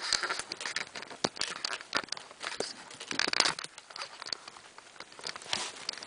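Kittens scrambling about, claws scratching and the plastic lining under the blankets crinkling: a run of quick crackles and rustles, with louder bursts at the start, about halfway through and near the end.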